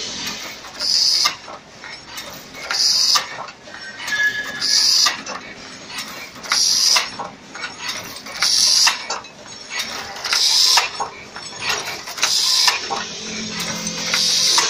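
Welded wire mesh machine running through its cycle: a short hissing burst about every two seconds, with rapid clicking and clattering of the mechanism between.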